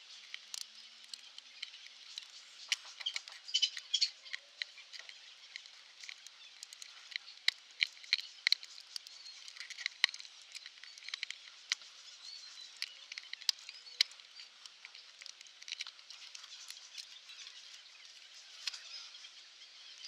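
Irregular sharp clicks and crackles, old gaffer tape and a split CV boot being cut and peeled off a front drive shaft, over a faint steady hiss.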